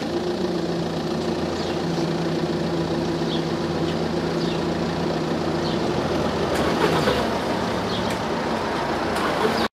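Level crossing barriers rising, with a steady motor hum from the barrier machinery that stops about six seconds in. Traffic then starts moving off across the crossing.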